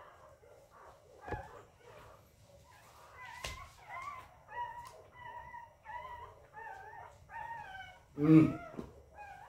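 Two-week-old puppies whining in a run of short, high, wavering cries, about one every half second, with a louder, lower call near the end. A couple of faint knocks early on.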